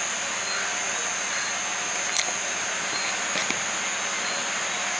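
Crickets chirring at night in one continuous high trill over a steady hiss, with a couple of faint clicks about two and three and a half seconds in.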